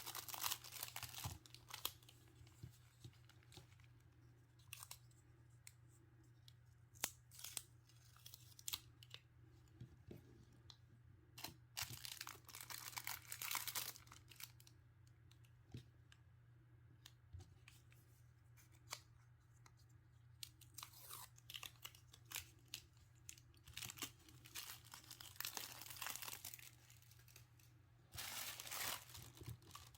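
Paper and plastic stationery packaging being handled and opened: scattered crinkles, rustles and small tearing sounds, growing denser near the end, over a faint steady low hum.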